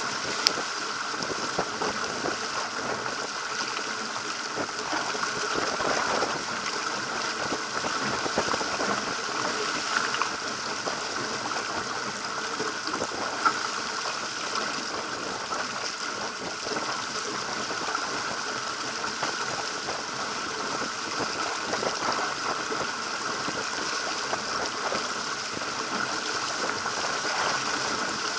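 Water rushing and splashing along the hull of a Pacer sailing dinghy driving through choppy water, a steady hiss of spray and wash. Two sharp knocks stand out, one about half a second in and one about halfway through.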